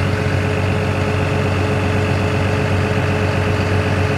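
CAT M316D wheeled excavator's diesel engine idling steadily, an even low hum with no change in speed.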